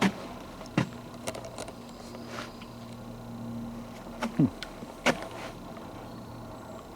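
Irregular footsteps and small clicks on a forest trail, about one a second, over a faint steady low hum.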